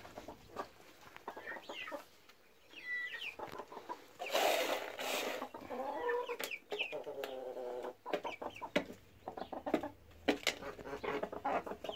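Chickens clucking and calling, with scattered sharp clicks and a brief burst of scraping noise about four seconds in.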